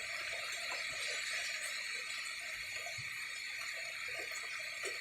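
Steady night insect chorus: a constant high buzzing trill that holds unchanged, with no thunder or rain standing out.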